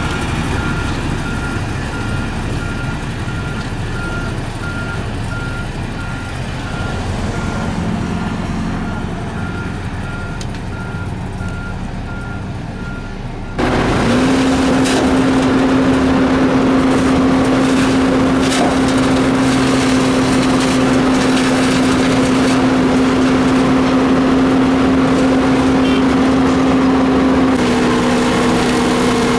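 Heavy road-paving machinery running, with a back-up alarm beeping steadily over the low engine rumble. About halfway through, this gives way suddenly to a louder, steady heavy engine drone at one held pitch, which drops slightly near the end.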